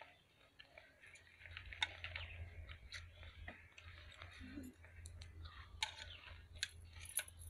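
Faint eating sounds: chewing and lip smacks, with a few sharp clicks of chopsticks against a plate.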